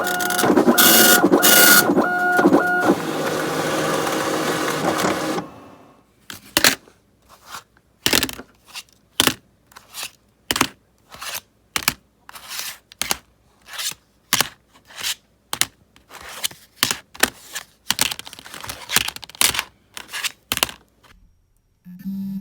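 Dot matrix printer printing in quick repeated passes with a buzzing tone, settling into a steadier whirr and stopping about five seconds in. A run of short, separate clicks and mechanical bursts follows, about one to two a second at uneven spacing.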